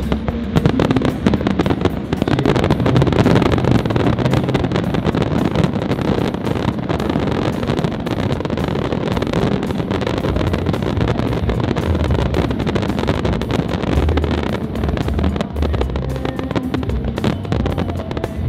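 Fireworks display: many shells bursting and crackling at once in a dense, continuous barrage with a heavy low rumble.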